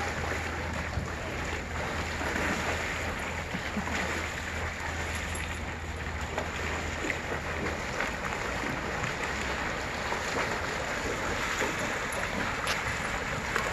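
Water sloshing and splashing steadily as several dogs and a man wade through water pooled on top of a sagging pool cover. A low steady hum runs underneath and stops about eight seconds in.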